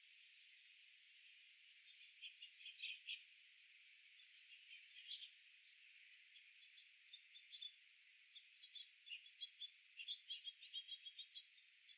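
Small birds chirping in short high notes over a faint hiss: a few scattered chirps at first, then a quick run of chirps in the last few seconds.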